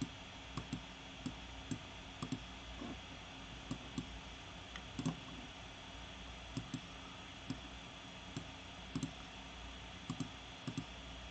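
Scattered, irregular clicks of a computer mouse and keyboard keys, some in quick pairs, over a steady faint hiss and low hum.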